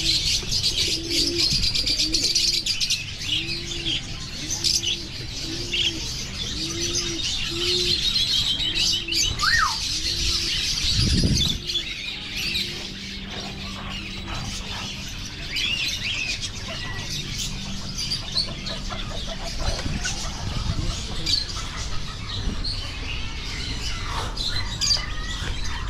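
Many caged birds chirping and twittering together in a dense high chatter. Under it, a low cooing call repeats over and over, a little more than once a second, through the first half.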